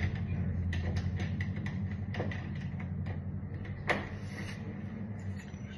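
A motor starts abruptly and runs with a steady low hum, easing off near the end, with scattered sharp clicks and taps over it.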